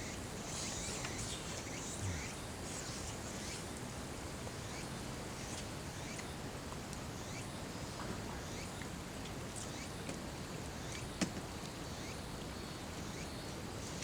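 Steady outdoor background noise with faint high insect buzzing in the first couple of seconds and a few scattered soft clicks, one sharper click about eleven seconds in.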